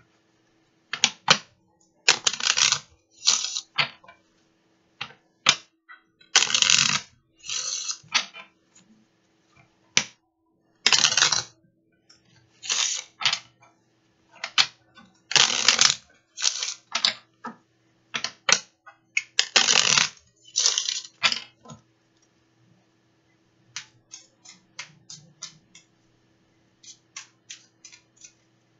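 A deck of oracle cards shuffled by hand: a run of short rustling bursts as the cards slide over one another, separated by brief pauses, turning into quicker light clicks near the end.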